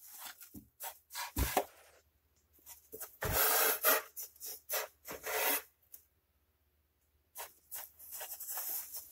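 Irregular rubbing and scraping noises in several short bursts, the longest and loudest about three seconds in, with stretches of near silence between them. The range hood's blower is not running.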